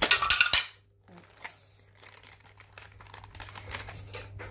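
Clear plastic packaging bags crinkling as they are handled. A loud burst of rustling cuts off suddenly a little over half a second in, followed by fainter, scattered rustles.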